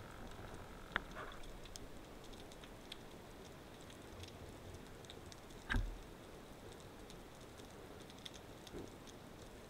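Faint underwater crackling and ticking over a rocky reef, with a sharp click about a second in and a louder knock with a low thud just before the six-second mark.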